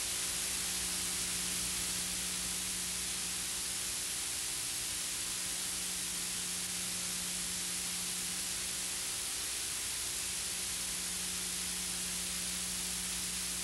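Steady hiss of an old recording's noise floor, with a faint low electrical hum under it. No distinct sound events.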